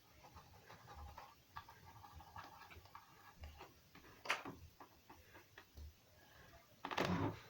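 Faint handling noises of small parts: scattered light ticks and rustles, a sharp click about four seconds in, and a louder short scrape near the end.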